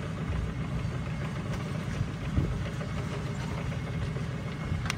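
Viking Access H10 slide gate operator running, driving a long slide gate closed: a steady low drone and rumble. A sharp click comes right at the end.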